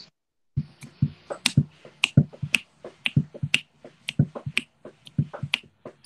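Metronome click from Finale notation software's playback, a sharp tick about twice a second, at the tempo of 120 set in the playback controls.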